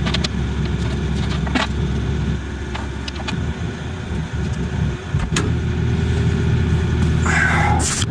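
Case CX80 excavator's diesel engine running steadily while the machine works, with a few sharp knocks and a brief hiss near the end.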